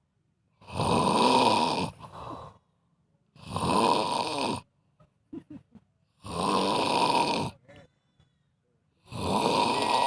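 A person snoring: four loud snores, each about a second long, coming about every three seconds with near-silent pauses between them.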